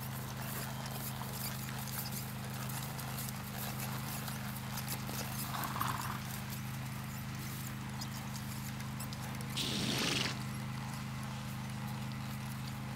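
A horse walking on packed dirt, its hooves giving soft, irregular clip-clop steps over a steady low hum. About ten seconds in there is a short hissing burst, the loudest sound.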